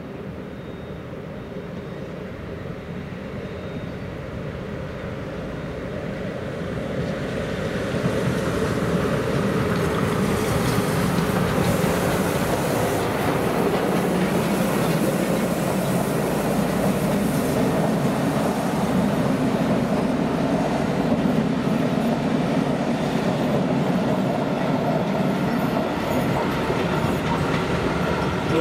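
Steam locomotive 477.043 (ČSD class 477.0) running past at slow speed with a train of passenger coaches, wheels rolling over the rails and points. It grows louder over the first eight seconds or so as it comes close, then holds steady as the coaches roll by.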